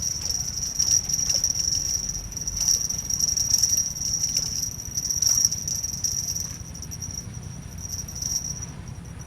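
Insects, cricket-like, chirring in a continuous high-pitched trill, softening about two-thirds of the way in.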